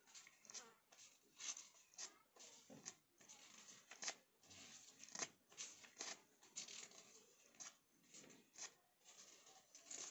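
Faint rustling of a small slip of paper handled between fingers: a run of short, irregular crinkles and scratches.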